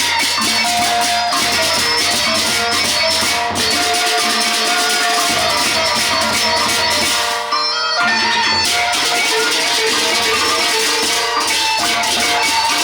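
Gendang beleq ensemble playing: dense, fast clashing of small cymbals over big drums, with steady ringing tones from tuned gongs. The cymbal clashing stops briefly about halfway through, then resumes.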